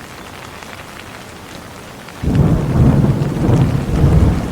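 Steady rain hissing, then about two seconds in a loud rumble of thunder breaks in and rolls on.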